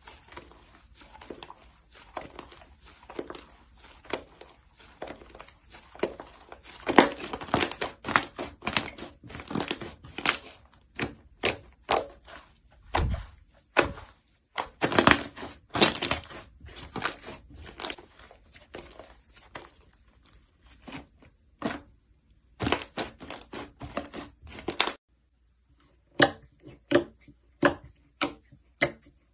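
Slime being squeezed, pressed and poked by hand, giving dense runs of crackles, clicks and pops. A break about 25 seconds in, then a slower run of single clicks at about one and a half a second.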